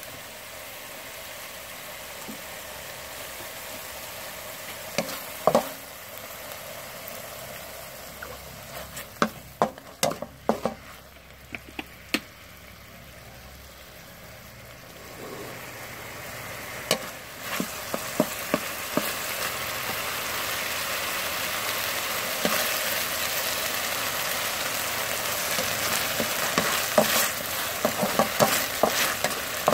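Minced pork sizzling as it fries in a steel wok, with a wooden spatula scraping and knocking against the metal in scattered clusters of clicks. The sizzling grows louder about halfway through.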